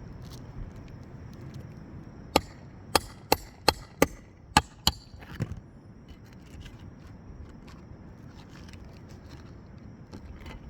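About seven sharp strikes of a roofing tool in quick succession, roughly three a second, starting about two seconds in, as nails are worked loose to pull an old asphalt shingle.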